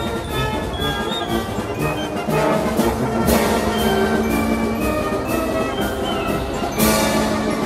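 Orchestral background music with strong accents about three seconds in and again near the end.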